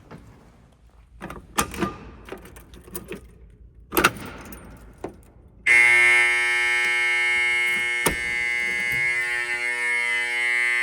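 A few clicks and knocks, the loudest about four seconds in, then the old Edwards fire alarm horns come on suddenly with a loud, steady, buzzing tone that holds without pulsing.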